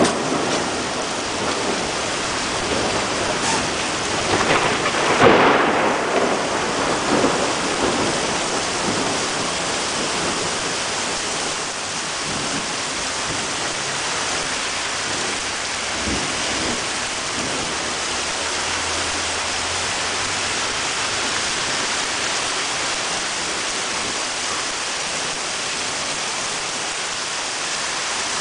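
Heavy thunderstorm rain pouring down steadily, with a loud crash of thunder about five seconds in that rumbles on for a few seconds before the downpour is heard alone.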